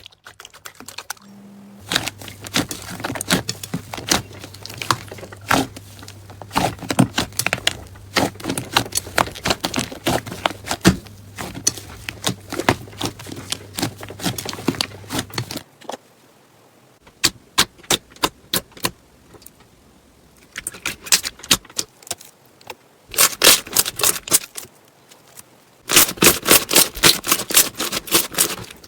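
Crunchy slime being squeezed and poked, giving rapid crackling clicks and pops, in several stretches with short pauses between them.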